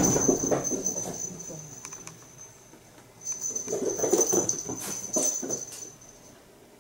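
A domestic cat yowling. One long call trails off over the first two seconds, and a second drawn-out yowl starts about three seconds in and lasts roughly three seconds.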